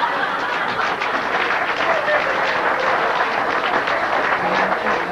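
Live audience applauding in a dense, steady patter.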